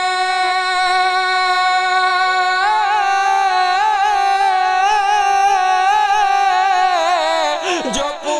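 A singer holding one long note of an Urdu devotional kalam, steady at first, then wavering with vibrato from about three seconds in, breaking into a quick falling run near the end.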